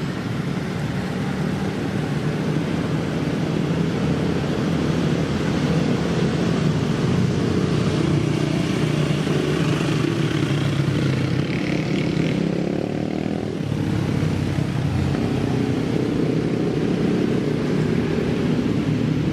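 A motor engine running steadily, its drone shifting slightly in pitch about two-thirds of the way through.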